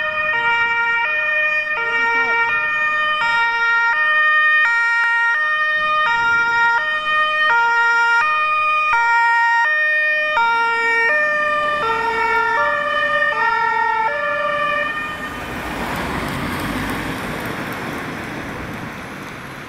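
Two-tone German emergency horn (Martinshorn) on a Mercedes-Benz 814 fire service command van, alternating a high and a low note about every three-quarters of a second. It stops about fifteen seconds in, leaving the van's engine and tyre noise fading as it drives away.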